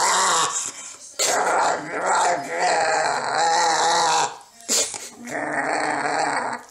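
A small dog growling, with teeth bared, in three long stretches with short breaks between them. It is a warning growl at a hand touching it through its crate.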